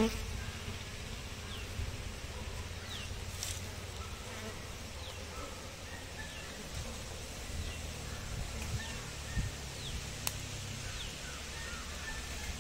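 Indian honey bees (Apis cerana indica) buzzing steadily around an opened hive box as a honeycomb frame is lifted out. A faint, short, high chirp repeats about once a second in the background.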